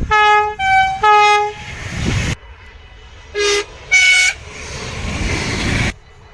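Dutch trains sounding two-tone horns: three quick blasts, high, low, high, then the rushing noise of a train passing, which cuts off suddenly. After that a second train gives two short blasts of different pitch, followed by more passing noise that also cuts off suddenly.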